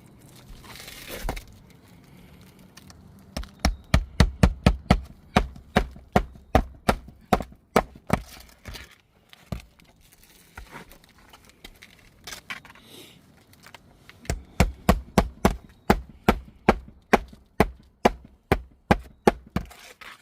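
Rapid hammer blows, about four a second, in two runs of several seconds each: roofing nails being driven to fix a replacement roof shingle. A brief scraping noise comes before the first run.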